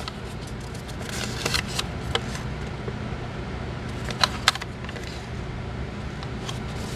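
Handling noises of a paper pamphlet and cardboard display box: scattered rustling and a few light clicks over a steady low room hum, with a sharper double click about four seconds in.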